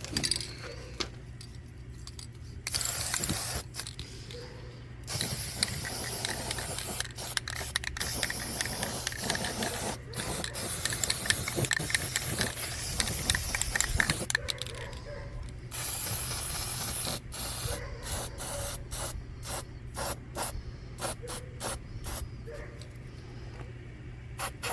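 Aerosol can of rust-killing paint spraying with a steady hiss: first a short burst, then a long continuous spray of several seconds, then a run of short quick puffs, about two a second, near the end.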